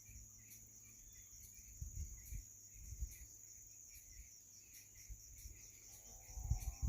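Insects trilling steadily in a continuous high whine, with a fainter chirp repeating about three times a second, over irregular low rumbles. About six seconds in, a brief pitched call with several stacked tones, falling slightly, sounds over it.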